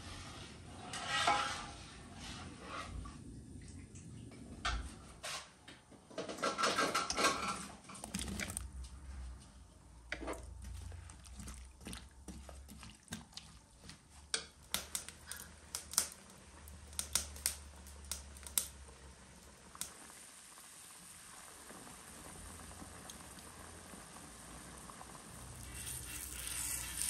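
Kitchen handling sounds: dishes and utensils knocking and clinking in scattered sharp clicks, with longer noisy stretches of handling near the start and about six to eight seconds in.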